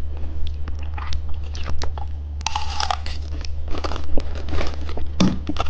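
Close-miked candy eating: irregular crisp clicks, crackles and crunches as a hard candy is handled, unwrapped and bitten, with a short rustling burst about two and a half seconds in.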